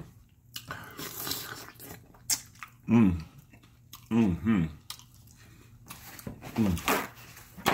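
Close-miked wet chewing and lip smacking of buttery food. It is broken three or four times by short hummed 'mm' sounds of enjoyment.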